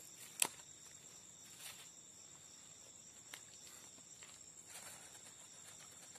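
Steady high-pitched chirring of crickets or other night insects, with one sharp click about half a second in and a few faint ticks later.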